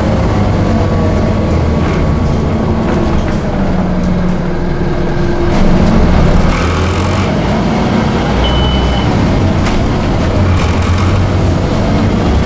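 Scania OmniCity single-deck bus heard from inside the passenger saloon while driving: steady engine and drivetrain drone with road noise and occasional clicks and rattles. A brief high beep sounds about eight and a half seconds in.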